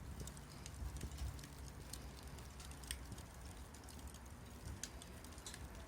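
Small wood fire crackling: faint, irregular sharp pops and snaps over a low steady rumble.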